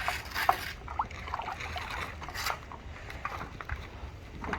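Water splashing and sloshing around paddleboards in short bursts, the strongest at the start and another about two and a half seconds in, over a steady low wind rumble on the microphone.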